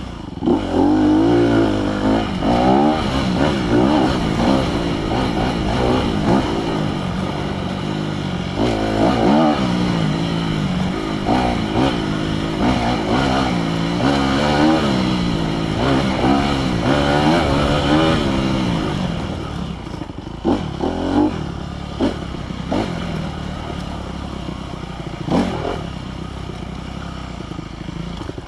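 Honda CRF250R's single-cylinder four-stroke engine, heard close-up from an onboard camera, revving up and falling back again and again as the dirt bike is ridden hard; after about nineteen seconds the revs settle lower and a few clattering knocks come through.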